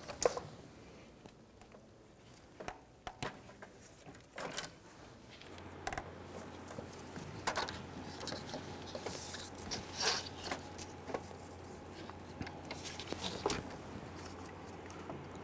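Gloved hands handling rubber spark plug wires and pressing their boots onto the ignition coil pack: scattered light clicks and knocks with rustling in between.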